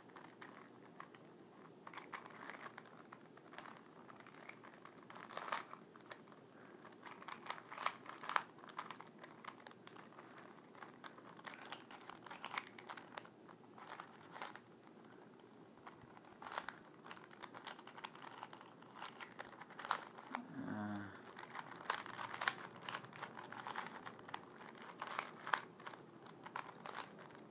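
A plastic Rubik's Cube being turned by hand: irregular quick clicks and clacks as the layers are twisted, coming in bursts with short pauses between them.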